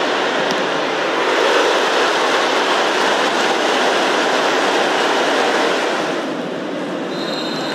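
Football stadium crowd noise: a dense, steady din of many voices from the stands. It grows louder about a second in and drops back slightly after about six seconds.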